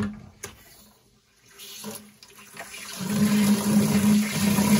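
Water running from an opened brass drain valve into a plastic bucket as the house's water lines are drained. It starts faint and becomes a louder, steady rush about three seconds in as the flow fills the bucket.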